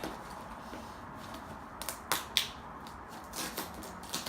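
Paper packaging being handled and pulled open as a present is unwrapped, with a few sharp crinkles and rustles about two to four seconds in.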